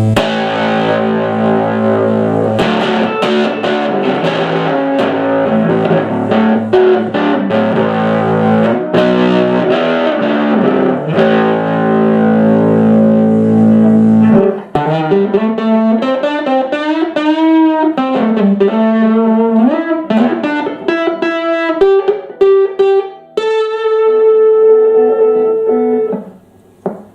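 Electric guitar played through a 1961 Fenton Weill Cornet valve amp fitted with new valves: strummed chords for about half the time, then single-note lead lines with bent notes, stopping just before the end.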